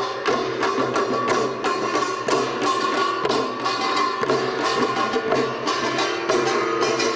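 Korean pungmul percussion ensemble playing: buk barrel drums and a jing gong struck in a fast, even beat, with steady ringing tones underneath.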